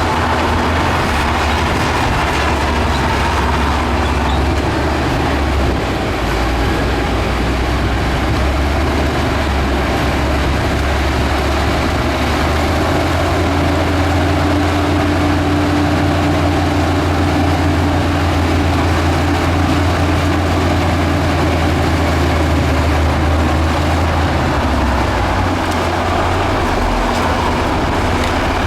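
Diesel engine of heavy earthmoving machinery running steadily as a deep, even drone. A higher steady whine sits above it for a few seconds about halfway through.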